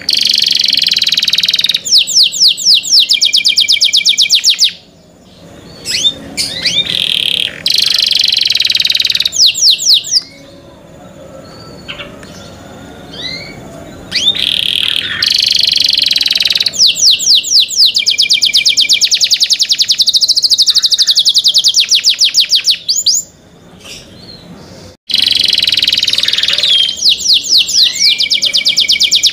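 Domestic canary singing: long runs of fast trills and rolls, high-pitched and loud, in four bursts broken by short pauses.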